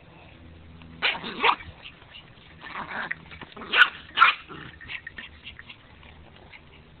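Pomeranian barking in short bursts: two close barks about a second in, more near three seconds and twice around four seconds, then a few softer ones.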